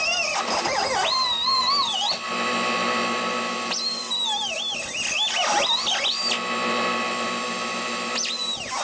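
Angle grinder with a thin cut-off wheel cutting into the steel body panels of a 1965 Mustang. Its high whine dips and recovers again and again as the wheel bites into the metal, and runs steady for a second or two in the middle.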